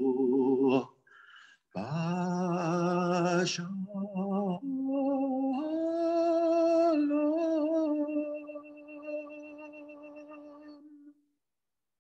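A man chanting the end of a Hebrew prayer verse, then, after a short pause, singing a wordless tune in long held notes with a wavering pitch that fades out about eleven seconds in.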